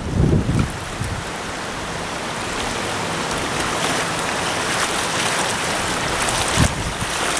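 River water flowing steadily, a constant rushing of the current. Brief low rumbles on the microphone come in the first second and again near the end.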